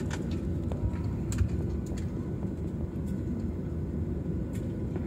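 Jet airliner cabin noise during the landing roll: a steady low rumble of the engines and the wheels running on the runway, with a few faint rattles.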